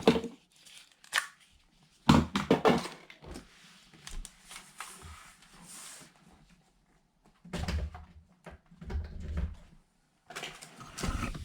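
Handling noise from a cordless tool's plastic battery charger and battery pack: a sharp click, then a quick cluster of knocks and clicks about two seconds in, with quieter rustling and a few low muffled knocks later on.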